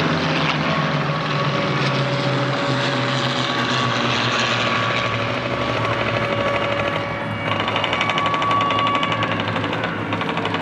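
P-51 Mustang's Merlin V-12 engine droning overhead, its pitch slowly falling as it passes and moves away. About 7.5 seconds in, a closer Mustang's engine takes over with a fast, even pulsing from its exhaust.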